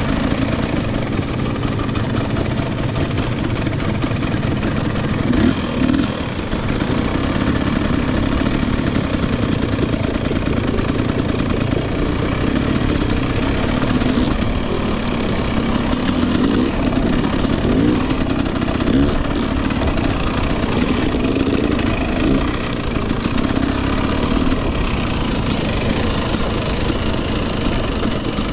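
Single-cylinder two-stroke engine of a 2021 Husqvarna TE250i dirt bike running, with brief rises in revs from the throttle several times.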